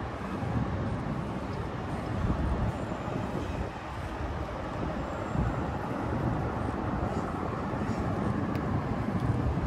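Wind on the microphone of a camera riding along on a moving bicycle: a steady rushing noise with low, uneven buffeting.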